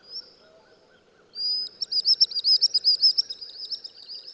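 Common sandpiper singing: a short high note at the start, then from about a second in a longer high note that breaks into a rapid trill of repeated high notes, about eight a second, fading toward the end.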